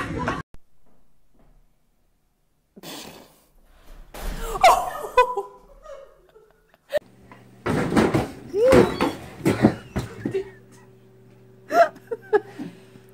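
Short bursts of laughter and shrieking voices, with a sharp knock about seven seconds in and a loud thud near the end. A steady low hum runs under the second half.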